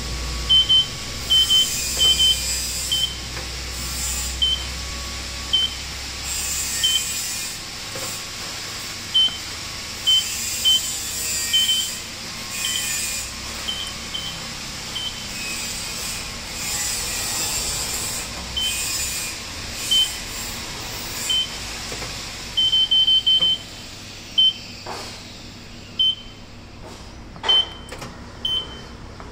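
Europa bakery oven's electronic control panel giving short, high beeps as its rotary knob is turned, sometimes single and sometimes in quick runs of three or four, over a background hiss.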